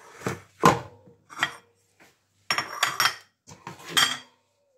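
Raw chicken pieces being put into a stainless steel pot: a series of knocks and clatters against the metal, several leaving a short metallic ring.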